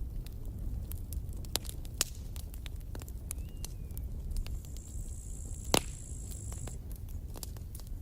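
Campfire crackling: scattered sharp pops and snaps over a steady low rumble, with one loud pop about three-quarters of the way through. A thin high hiss runs for about two seconds just past the middle.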